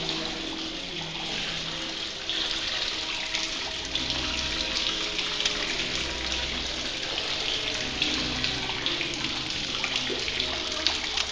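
Water from a fountain splashing steadily into a stone basin, with soft held notes of background music underneath.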